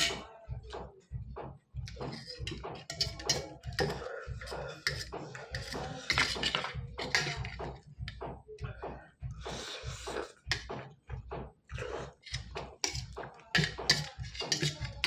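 Close-up eating sounds of Maggi instant noodles: wet chewing and mouth sounds, with a steel fork and spoon clinking and scraping on a steel plate as many short, irregular clicks.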